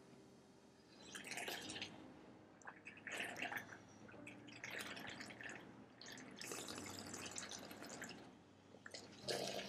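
Faint, irregular slurps and sips as pani puri water is drunk straight from a tilted glass bowl.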